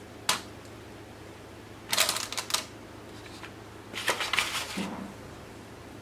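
Hands placing cherry tomatoes and green pepper slices on a pizza on parchment paper: a single click, then two short bursts of crinkly rustling about two and four seconds in.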